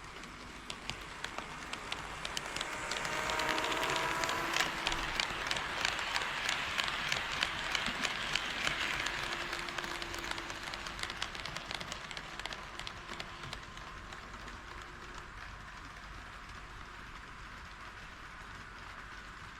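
HO scale model train running on model track past the microphone, with sharp clicks from the wheels over the rail joints. It grows louder over the first few seconds, is loudest through the middle, and fades away towards the end.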